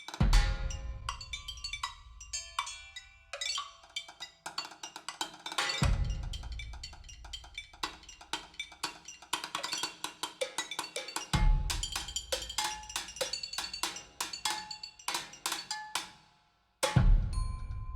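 Percussion music played back through Elfton Vegas II loudspeakers in a room: dense drum and wood-block-like strikes with ringing pitched notes, punctuated by heavy deep bass-drum hits about every five and a half seconds. The sound drops out briefly about a second before the end, just before another deep hit.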